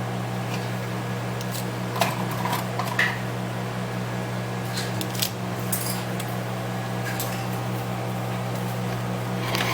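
Steady low electrical hum, with a few light metallic clicks and taps of small hand tools, about two and three seconds in and again around five seconds.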